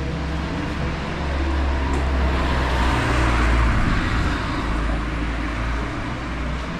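Street traffic: a motor vehicle passes close by, its engine and tyre noise swelling to a peak about three and a half seconds in and then fading, over a steady low rumble.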